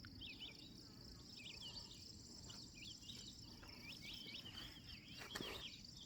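Faint steady trilling of insects, with many short bird chirps over it and a single brief knock about five seconds in.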